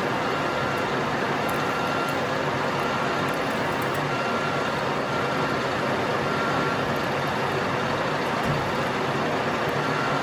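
Colchester metal lathe running steadily, spinning a square aluminium bar in its four-jaw chuck while a twist drill in the tailstock cuts the tapping hole, with a faint whine that comes and goes.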